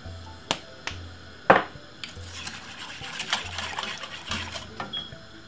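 A wire whisk stirring liquid in a stainless steel pot, its wires clinking and scraping against the pot in a quick run of light ticks, after a few sharp knocks in the first second and a half, the loudest about a second and a half in.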